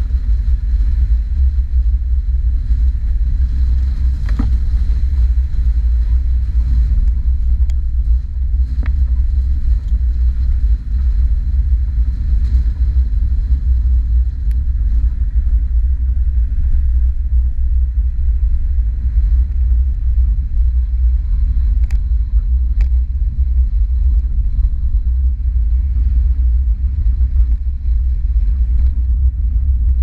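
1990 VAZ 21063 (Lada) with its 1300 cc engine driving slowly along a rough dirt and gravel track, picked up from outside the car: a steady heavy low rumble of engine, tyres and wind, with a few light knocks from the bumpy ground.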